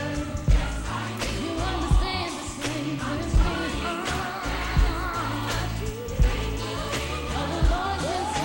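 Gospel song with a singing voice over a heavy beat, a hard low drum hit about every one and a half seconds.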